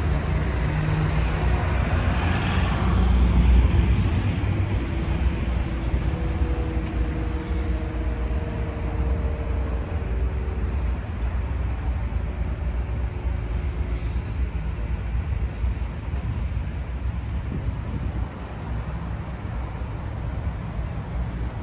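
Road traffic: a vehicle passes close by a few seconds in, over a steady low rumble of traffic, with a faint engine hum that holds for several seconds.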